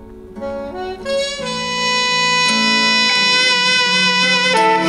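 Instrumental music played through car-audio speakers on a listening stand: long held notes that start softly and swell to full level about a second in.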